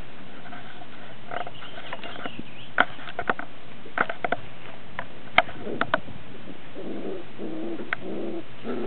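A poodle puppy playing with a cushion on grass: a handful of short, sharp clicks and squeaks scattered through the middle. Near the end, low repeated coo-like sounds begin.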